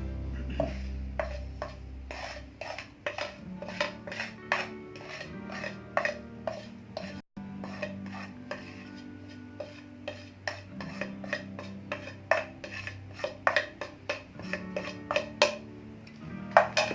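Metal spoons clinking and scraping against bowls and spice containers as spices are spooned onto raw chicken for a marinade: many light, irregular clicks. Soft background music plays underneath.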